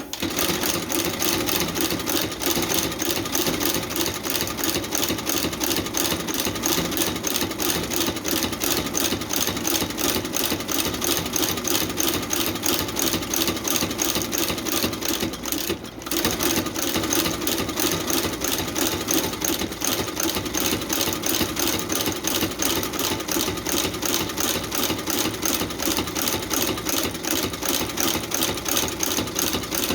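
Curved needle sole stitcher running, sewing through a boot sole in a fast, even rhythm, with a brief stop about halfway through.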